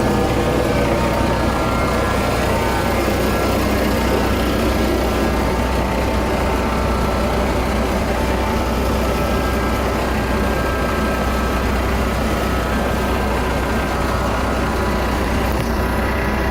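An engine running steadily at a constant speed, with a strong low hum that holds unchanged throughout.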